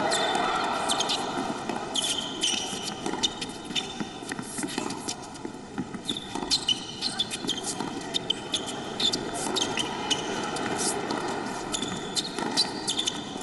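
A long tennis rally: a ball struck back and forth with rackets, with sharp pops of the strings and ball bounces every second or so, and tennis shoes squeaking on the hard court.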